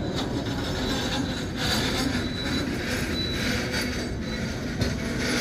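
Freight train cars rolling past as the train slows to a stop, with a steady rumble and thin, high wheel-and-brake squeals that come and go.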